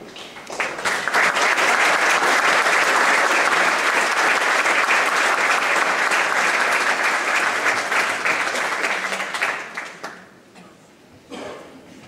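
Audience applauding steadily: the clapping builds up about half a second in and dies away near ten seconds in.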